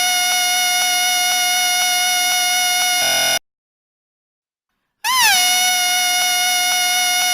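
A whistle blown in one steady, shrill tone. It cuts off abruptly for about a second and a half midway, then comes back with a brief swoop up and down in pitch before settling to the same steady tone.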